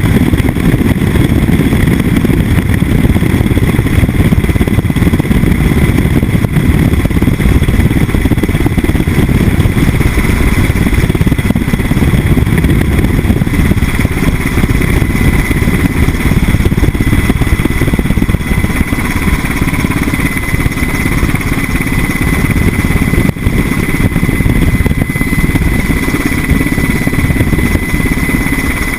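Sikorsky H-60 helicopter running steadily: a heavy low rotor and engine rumble with a steady high whine over it.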